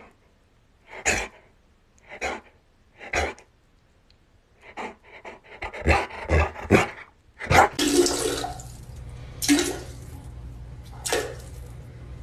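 A husky giving a run of short calls, about one a second at first and then quicker. After that, a steady rush of water in a toilet bowl with a few louder splashes.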